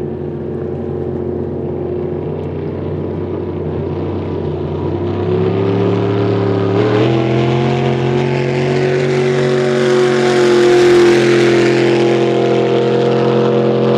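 An engine running steadily; about halfway through its pitch steps up and it grows louder, as if given more throttle.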